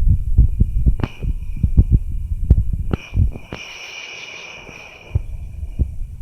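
Low, irregular rumbling and thumping, with a steady high insect trill.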